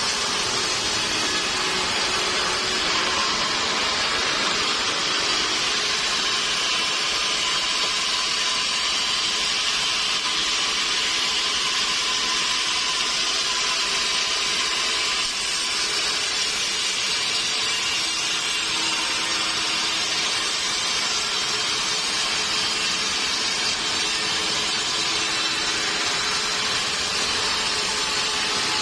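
Sawmill saw running steadily through a mahogany log, a constant, unbroken whine-like hiss with a faint machine hum beneath.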